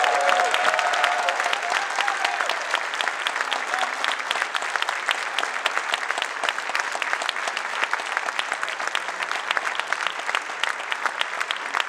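A large indoor audience applauding steadily, with a few voices calling out at first. The clapping eases slightly toward the end.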